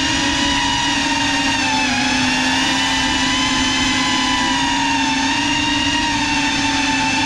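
Small quadcopter drone's motors and propellers whining steadily, with the pitch dipping slightly about two seconds in and then rising again.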